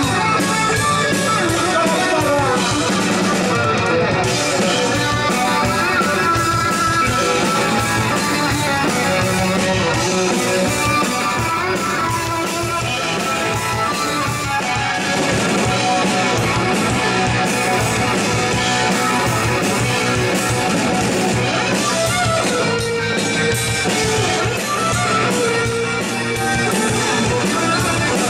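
Live instrumental rock: an electric guitar plays lead lines over a drum kit and bass.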